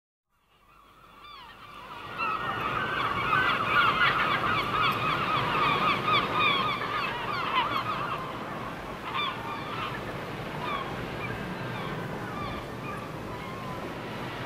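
A large flock of birds calling, many short overlapping calls at once. It fades in after a moment of silence, is busiest in the first half, and thins out after about eight seconds over a steady background rush.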